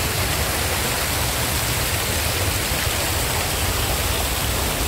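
Fountain water splashing and falling in a steady rush.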